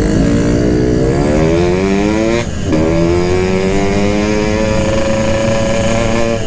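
Yamaha RX-King two-stroke motorcycle engine pulling under way, its pitch climbing as it accelerates. About two and a half seconds in, the note breaks off and drops as it shifts up a gear, then climbs steadily again.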